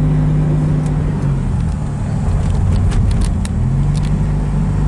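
Car engine and road noise heard from inside the cabin while driving. The engine note dips slightly about a second in and climbs back up near the end.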